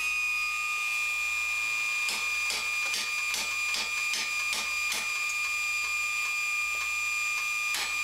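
Forging press running while it squeezes a red-hot iron bar into a round form, a steady high-pitched whine with a regular ticking, about two to three clicks a second, for a few seconds after about two seconds in and again near the end.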